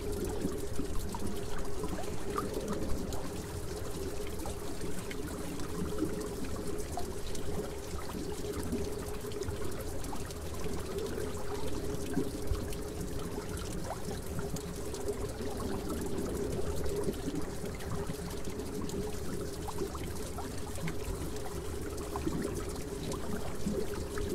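Steady trickling and bubbling of aquarium water, with air from an air stone rising through the tank, a continuous wash of fine crackles.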